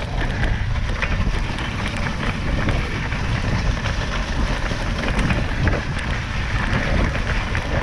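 Steady rushing of a dog sled's runners gliding over packed snow, mixed with wind rumbling on the microphone, with a few faint ticks and knocks from the sled.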